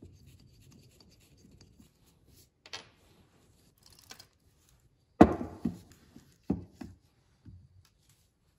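Workbench handling sounds as a carburetor and small tools are worked over and set on a wooden bench: faint rubbing and a click, then a sharp knock about five seconds in and a few lighter knocks after it.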